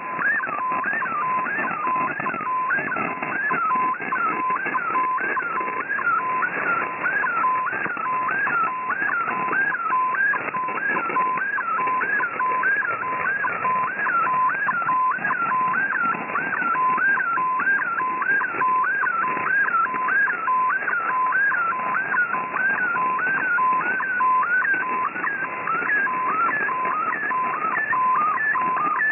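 Shortwave radio receiving an MFSK64 digital image transmission: a warbling tone sweeping up and down about one and a half times a second as the colour picture is sent line by line. A short, evenly repeating beep sits lower down, over steady band hiss and static.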